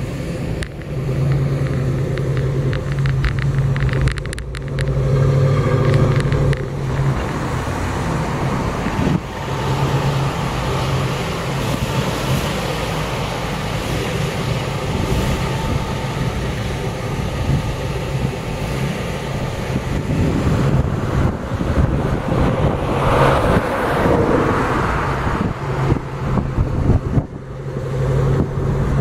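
A 4x4's engine running steadily while driving over desert sand, with a low drone under continuous tyre and wind noise.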